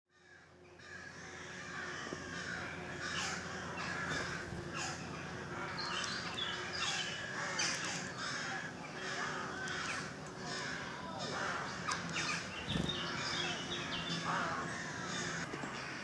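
Wild birds calling in woodland: many harsh, caw-like calls repeating one after another, fading in over the first second or two.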